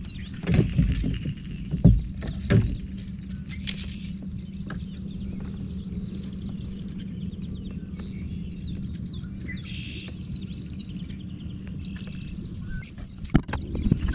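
Birds chirping and singing over a steady low hum, with a few sharp knocks in the first few seconds and again near the end.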